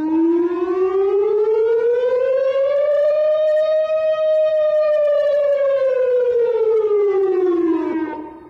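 Saudi Arabian civil defence warning siren sounding one slow wail: its pitch rises for about four seconds, then falls back over the next four and fades out near the end.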